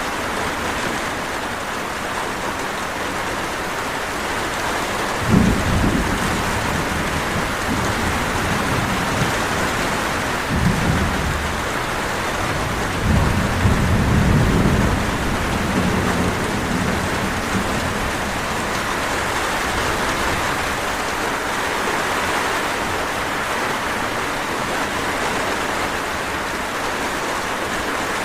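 Steady rain falling, with low rumbles of thunder three times in the first half.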